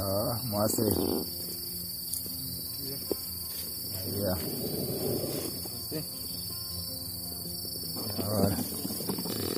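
Insects chirring steadily in one constant high tone. Indistinct voice-like sounds rise over it three times: at the start, about halfway through, and near the end.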